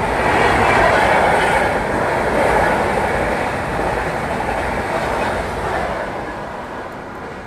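Express train of red LHB passenger coaches running through the station at speed, about 130 km/h: a loud, steady rush of wheels on rail that fades over the last second or two as the end of the train goes by.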